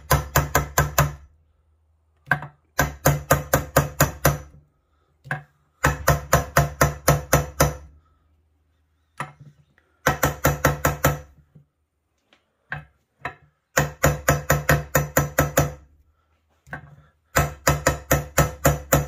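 Steel hammer tapping on a chrome socket used as a seal driver, metal on metal with a short ring on each strike. The strikes come in six quick runs of about five or six a second, with single taps between. They are driving a water pump outer seal down into an ATV engine case until it sits level.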